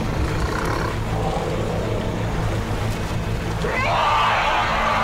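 An African elephant gives a loud, harsh call that starts with a rising onset about four seconds in and carries on to the end. Under it runs a steady low drone.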